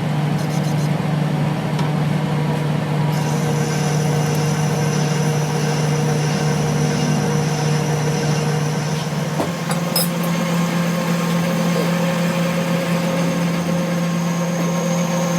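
A machine running steadily with a loud, low hum. Its pitch steps up slightly about nine to ten seconds in, right after a sharp click.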